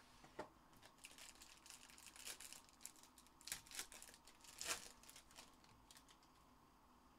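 Faint crinkling and tearing of a trading-card pack's foil wrapper as it is opened, in scattered crackles, the loudest about four and a half seconds in.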